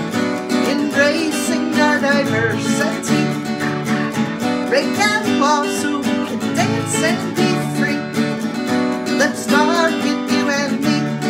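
Acoustic guitar strummed in steady chords, with a woman singing along.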